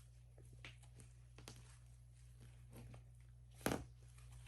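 Fluffy frosting slime being squeezed and played with by hand: faint, scattered small clicks and squishes, with one sharper pop near the end, over a steady low hum.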